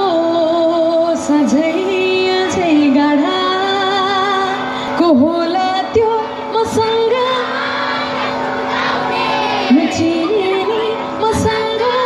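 Woman singing live through a PA system: a slow melody with wavering vibrato and sliding notes, broken by short breaths. Underneath runs a steady held backing note.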